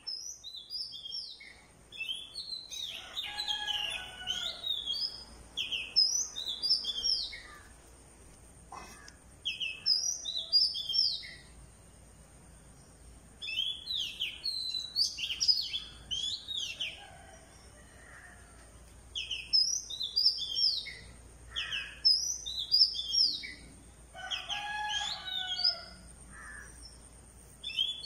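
Small birds chirping and singing: quick high chirps in bursts of a second or two, every few seconds, with quieter gaps between.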